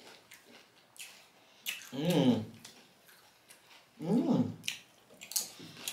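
Close-miked eating: crisp clicks of chips being broken and chewed, and two short 'mm' sounds of enjoyment, about two and four seconds in, each falling in pitch.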